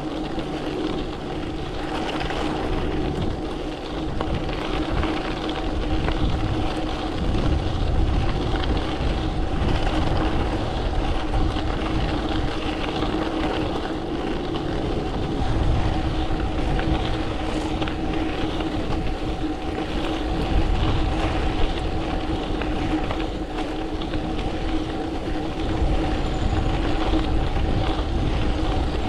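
Bicycle riding noise: wind buffeting the bike-mounted camera's microphone in gusts, over the rushing of tyres on the road and a steady hum.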